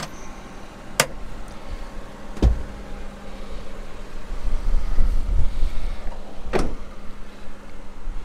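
Cab seat of a Daihatsu Hijet being lowered and latched back down over the under-seat engine bay: a few sharp clicks and a solid clunk about two and a half seconds in, then low rumbling handling noise.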